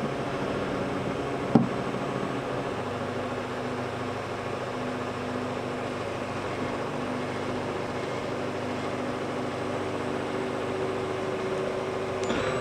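Steadytech Mini 3D printer printing its first layer: a steady whir with motor tones that shift in pitch as the print moves, and one short click about one and a half seconds in.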